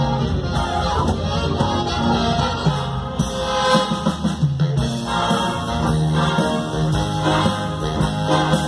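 A live big band of saxophones, trumpets, trombones and electric guitars playing a piece together.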